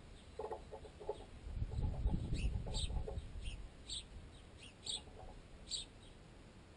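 Sparrows pecking at a piece of baguette clamped in a tent guy line. The pecks travel through the line and tent pole to the camera, so they come through unnaturally loud as quick bursts of knocking. Short high sparrow chirps sound between the pecks, and there is a low rumble about two seconds in.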